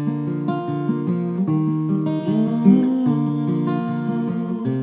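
Six-string acoustic guitar with a capo playing alone: a steady pattern of picked notes ringing over changing chords.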